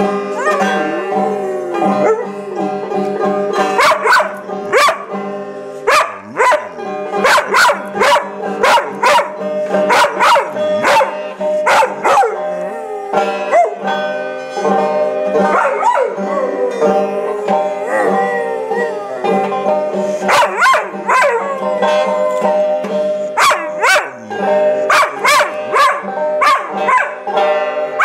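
A dog howling along to banjo music, its voice gliding up and down over the plucked banjo notes.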